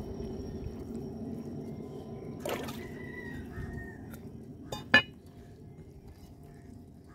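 Wet squelching and slithering as the guts and roe of a large common carp are pulled apart by hand, with a sharp click about five seconds in.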